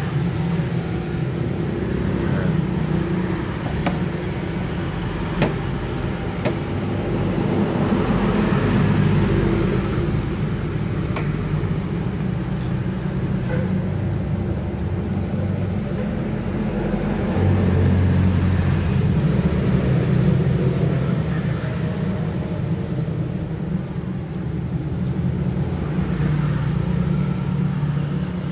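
A steady low mechanical hum and rumble that swells and fades, with a few faint clicks.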